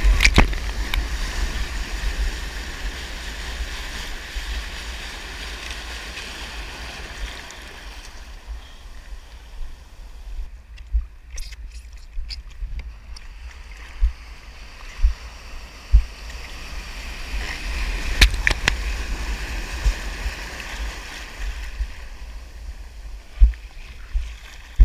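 Sea water splashing and sloshing against a GoPro's housing at the surface in the surf, over a steady low rumble, with a run of sharp thumps in the second half. About two-thirds of the way through, a broken wave's whitewater rushes past louder.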